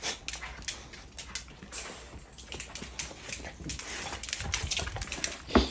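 Dogs play-wrestling on a hard wood floor: claws clicking and scrabbling in quick irregular taps, with a louder burst of sound near the end.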